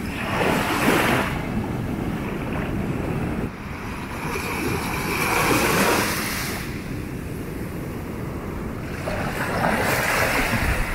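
Small waves washing onto a sandy shore, swelling and fading in several surges, with wind rumbling on the microphone.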